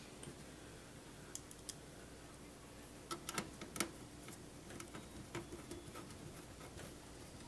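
Scattered light clicks and taps of computer parts being handled and fitted into a desktop case, loudest in a quick cluster about three seconds in, over a faint steady hum.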